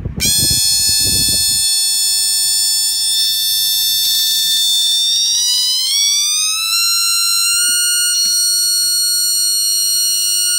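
Piezo buzzer of an FK248 turn-signal alarm kit sounding a loud, continuous high-pitched tone on bench power. About halfway through, its pitch glides up and then holds steady as the VR1 frequency trimmer is adjusted. It cuts off suddenly.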